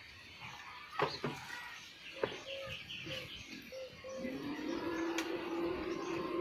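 Birds chirping in short repeated notes, with a few sharp knocks from handling tools, then about four seconds in a small electric machine starts up and runs with a steady hum.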